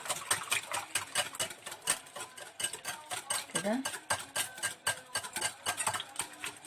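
A utensil beating a liquid mixture of milk, water, oil, egg and yeast hard in a bowl. It gives rapid, repeated clicks and scrapes against the bowl.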